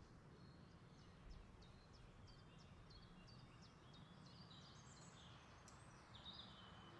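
Near silence: faint room tone, with soft high chirps running through the middle.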